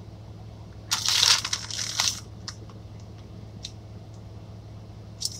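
Crinkling rustle, about a second long and starting about a second in, as shredded mozzarella is handled over a foil-lined pan. A few light ticks come near the end, over a steady low hum.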